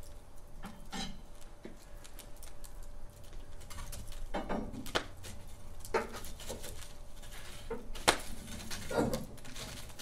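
Wood fire crackling in a fireplace: irregular sharp pops and short bursts of crackle over a low steady hiss, with one louder pop about eight seconds in.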